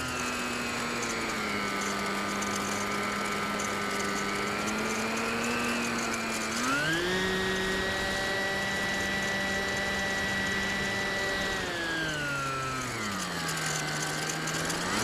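Electric motor and propeller of an E-flite Sbach 342 3D micro RC plane, heard from a camera on the plane, whining steadily. The pitch rises about six and a half seconds in as the throttle is opened, holds high, drops back a little after twelve seconds, and climbs again at the very end.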